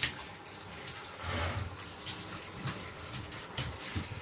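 Running water splashing unevenly as a dog is washed in a tub.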